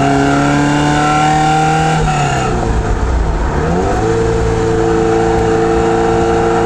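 1985 Ferrari 308 QV's flat-plane-crank V8 running under way. The engine note holds, drops about two seconds in, climbs back about a second later and then holds steady.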